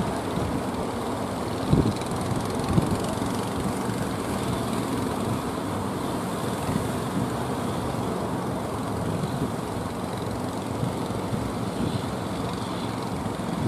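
Breaking surf and the engines of wooden fishing boats running as they push through the waves, with wind buffeting the microphone. Two short low thumps about two and three seconds in.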